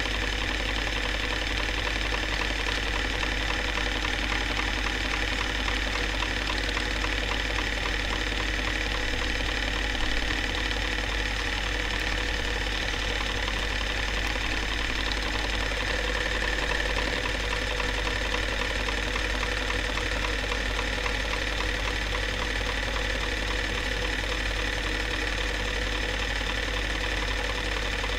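Narrow-gauge film projector running: a fast, even mechanical ticking from the film transport over a steady hum.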